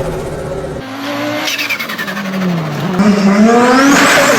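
Turbocharged car engine revving up and down, with a turbo whistle climbing with the revs, then a rhythmic 'stu-tu-tu' chatter when the throttle closes. This is turbo flutter: boost air trapped behind the closed throttle flows back and strikes the compressor wheel blades.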